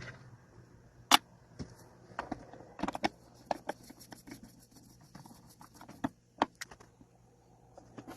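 Scattered light clicks and knocks of small hard parts being handled, irregular and loudest about a second in, over a faint low hum.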